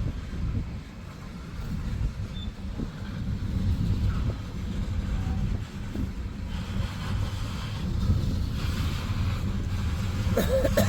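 Freight train cars rolling past at close range: a steady low rumble of steel wheels on the rails.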